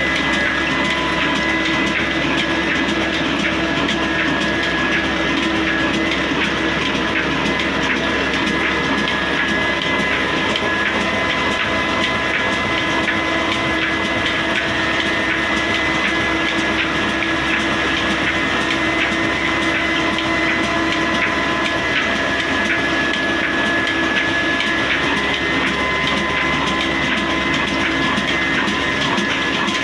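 A 26 hp Hussain Company 'kala' stationary diesel engine running steadily, with a fast, even mechanical clatter over a constant hum.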